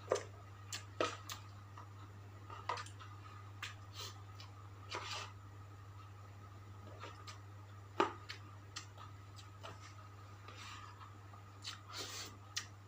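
Eating sounds: scattered short clicks and smacks of chewing and of handling fried chicken with sambal, a few seconds apart, over a steady low hum.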